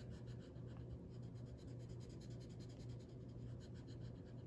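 Felt-tip marker scribbling quickly back and forth on a paper card, colouring in a small shape: a faint, rapid run of scratchy strokes over a low steady hum.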